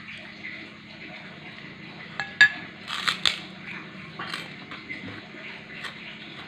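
Metal spoon clinking and scraping against a plate and the food while eating, with one sharp ringing clink about two and a half seconds in and a few softer clicks and scuffs around it. A steady low hum sits underneath.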